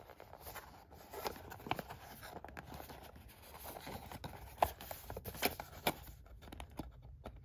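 Hands handling and turning a cardboard perfume box: faint rubbing and scraping of fingers on the card, with scattered light clicks and taps, the sharpest a little past halfway.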